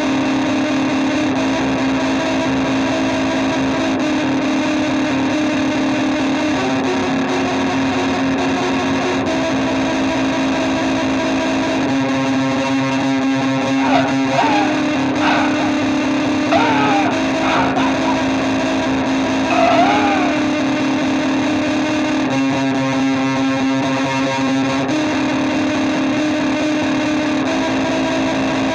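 Instrumental rock passage: heavily distorted electric guitar holding sustained chords that change every few seconds, with a few bent, sliding notes over them around the middle.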